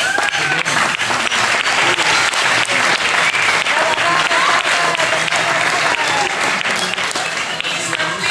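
Audience clapping continuously, a dense patter of many hands, with a few voices calling out over it.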